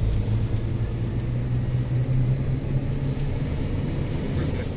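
Steady low rumble of a moving car heard from inside the cabin: engine and road noise with a constant low hum.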